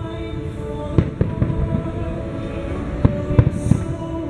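Aerial fireworks shells bursting in a string of sharp bangs over a continuous low rumble, with clusters of reports about a second in and again around three seconds in.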